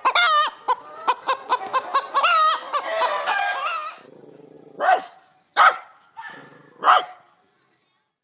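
Hen clucking and cackling in a fast run of calls for about four seconds, then three short squawks about a second apart, stopping near the end.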